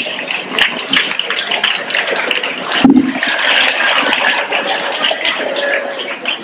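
Audience applauding: dense, steady clapping between dances.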